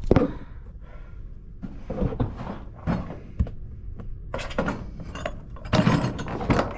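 Tools and equipment being handled: a sharp knock at the start, then scattered clinks, clicks and knocks, with no drill running.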